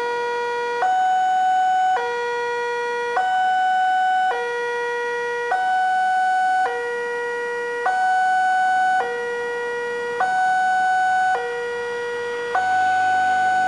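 A railway level-crossing warning alarm sounds from the loudspeaker on the signal post. Two electronic tones, one higher and one lower, take turns about every 1.2 seconds. It warns that a train is approaching while the barrier is down.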